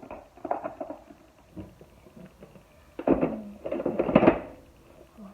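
Vacuum cleaner parts being handled and fitted together: knocking and scraping, with two louder bursts of clattering about three and four seconds in.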